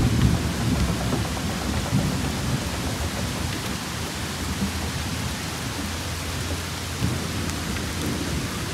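Steady rain hissing, with low, irregular rumbling underneath.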